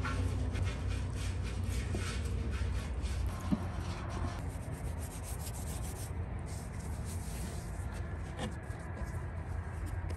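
Silicone pastry brush rubbing oil over the surface of an upturned iron saj griddle in quick repeated strokes, busiest in the first half and easing off later.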